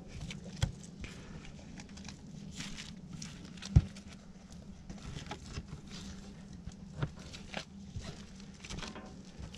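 Knife slicing venison into steaks on a plastic cutting board, with a few scattered sharp knocks of the blade and hands against the board, the sharpest a little over a third of the way in, over a low steady hum.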